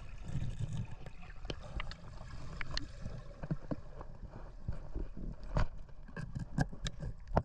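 Low water rumble with many scattered sharp clicks and knocks, as heard on a diving camera while abalone are being collected off the rocks.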